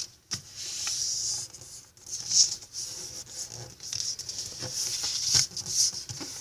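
Square of origami paper being creased by hand: repeated scratchy rubbing as fingers run along the diagonal fold, with a few small clicks.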